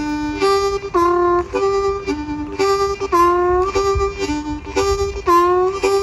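Hohner harmonica playing a blues riff: short, rhythmic phrases of chords and single notes repeated about every second, several notes bent and sliding up into pitch.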